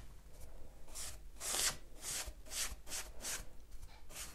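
Round bristle wax brush scrubbing dark brown furniture wax into a bare pine tabletop, a quick run of short rubbing strokes, about two to three a second.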